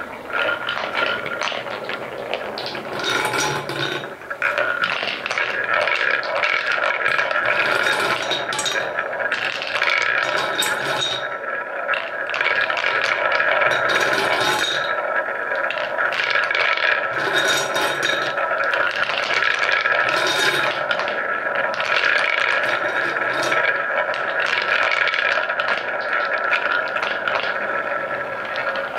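Painted wooden balls rolling on a wooden marble run, mostly many balls circling together in a wooden bowl funnel: a steady rolling whir and rattle, with clacks here and there as balls knock together and against the wood. It gets louder about four seconds in.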